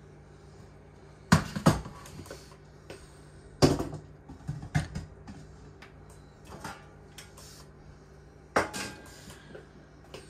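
Stainless steel pot clanking and knocking against other metal a handful of times, the loudest two in quick succession, over a faint steady hum.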